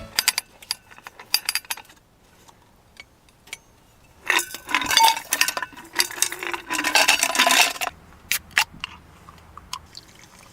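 Dishes and cookware clinking and knocking as they are handled, with a few seconds of denser rattling in the middle.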